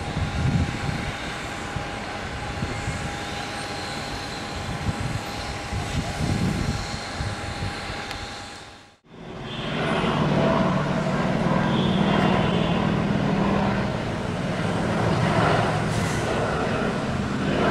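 A single-engine propeller aircraft running at full power as it takes off and climbs away, with a thin steady whine over the engine noise. About halfway through the sound cuts out abruptly and is replaced by a helicopter flying by, its rotor and turbine giving a steady low drone.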